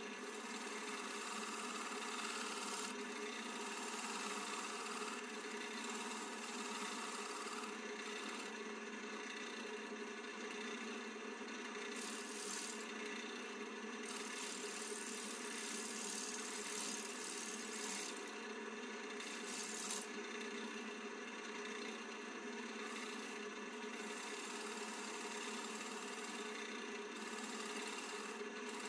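Wood lathe running with a turning tool cutting the spinning Western red cedar blank: a scraping, hissing cut that comes and goes in stretches over the lathe's steady motor hum.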